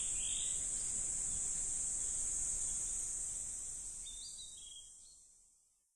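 Steady, high-pitched chorus of summer insects with a few short bird chirps near the start and again about four seconds in, the whole ambience fading out over the last two seconds.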